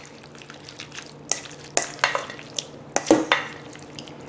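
Kitchen tongs tossing zucchini noodles in a thick cashew cream sauce in a stainless steel bowl: wet stirring sounds with irregular clicks and scrapes of the tongs against the bowl.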